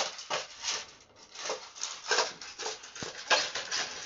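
Pit bull eating dry kibble from a metal bowl: irregular crunching and chewing, several crunches a second, with a short pause about a second in.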